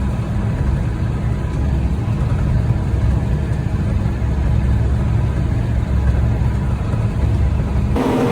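A large engine running steadily with a low rumble; near the end the sound changes abruptly to a different steady mechanical hum with a clearer tone.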